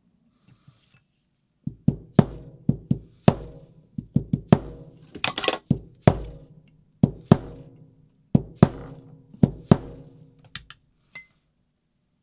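A hammer striking metal about fifteen times, sharp blows with a short ring after each, some in quick pairs. The blows are driving at a stuck roto-breach rod in a paintball marker.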